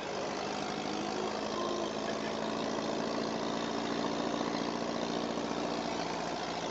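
Beach buggy engine running at a steady pitch as the buggy drives along the sand, under an even rush of wind noise.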